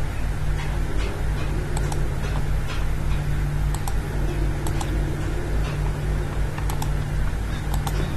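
Computer mouse clicking: about half a dozen sharp single clicks, spaced irregularly, over a steady low hum.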